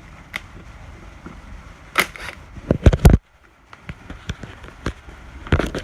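Cordless impact driver run in reverse in short bursts on a 10 mm drain bolt: brief, sharp clattering hits about two seconds in, a quick cluster around three seconds, and one more near the end.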